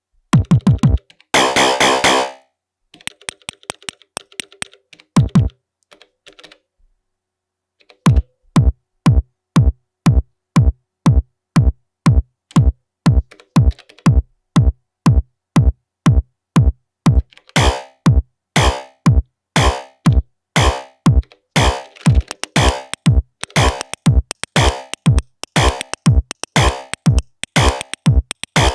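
Elektron Digitone synthesizer playing programmed drum sounds: a few deep kicks with a falling pitch and a short noise burst, then scattered light clicks. About eight seconds in, a steady kick beat starts at about two hits a second, and bright hi-hat and snare-like hits join it about halfway through.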